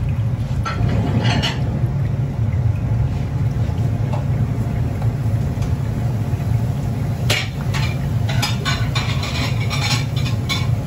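Wooden spatula stirring and scraping grated coconut filling around a pan, with a few strokes about a second in and a quick run of scrapes from past the middle, over a steady low rumble.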